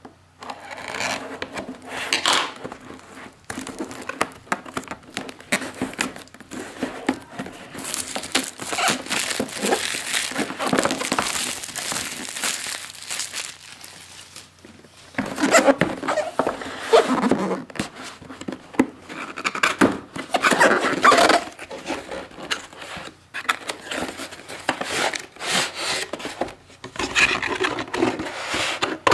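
Cardboard box being opened by hand, with paper and cardboard rustling, scraping and crinkling in irregular spells. There is a short lull about halfway, and the handling grows louder after it.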